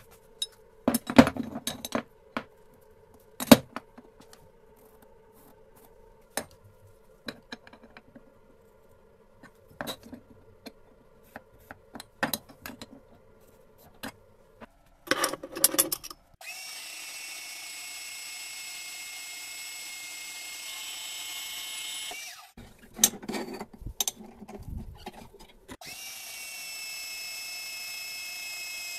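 Scattered knocks and clinks of steel pieces being handled, then a metal-cutting band saw running with a steady high whine from a little past halfway. It stops for a few seconds of clanks and starts running again near the end.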